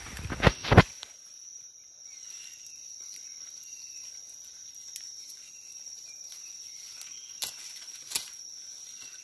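A high-pitched insect call holds one steady note, with two loud sharp knocks about half a second in and two fainter clicks near the end.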